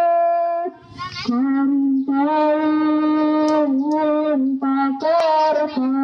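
A lone high voice singing slow, drawn-out notes, each held for a second or two with short breaks between, on a few pitches.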